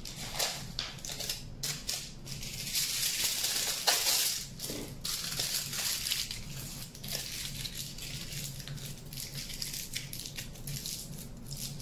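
Aluminium foil being crumpled and pressed by hand around a wire armature, a dense crinkling that is loudest about three to five seconds in.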